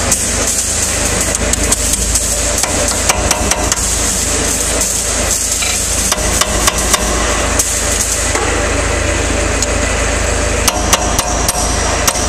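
Small hammer tapping a flat tool wedged under the rim of a car's front-hub grease cap, prying the cap off the wheel hub. The taps come irregularly, singly and in quick clusters.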